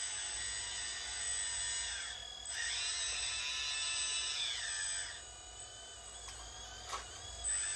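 Hydraulic pump of a radio-controlled model excavator whining as the boom and arm move, its pitch gliding up and down. It drops out briefly about two seconds in, runs strongest for the next few seconds, then falls away, with a few short clicks near the end.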